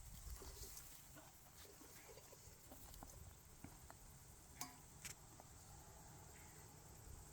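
Near silence: faint low background rumble with a few scattered soft ticks and one sharper click about four and a half seconds in.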